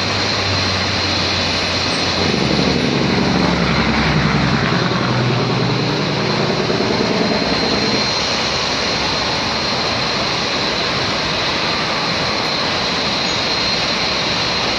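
Boeing 747's jet engines running steadily, heard as a constant rush with a thin high whine. Road traffic passes close by, with one vehicle's engine louder for a few seconds from about two seconds in.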